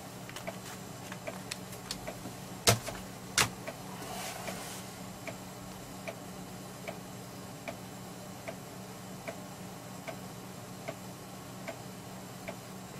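PC 3.5-inch floppy drive formatting a 1.44 MB Macintosh HFS disk, its head stepping track to track with regular soft ticks just under a second apart, over a low steady hum. Two louder sharp clicks come about three seconds in.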